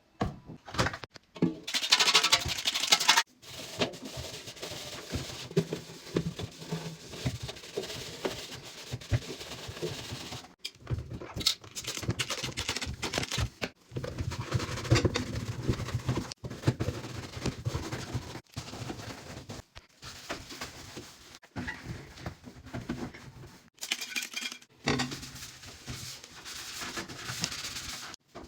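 Short bursts of hands-on cleaning sounds on a washing machine, cut sharply one after another: rubbing and scrubbing with scattered clicks and knocks of parts being handled.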